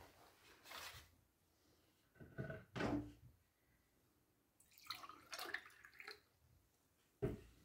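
Glass tea cups, kettles and a metal tray being handled, with a dull thump about two and a half seconds in and a sharp knock near the end. Water splashes from a plastic pitcher around five to six seconds in.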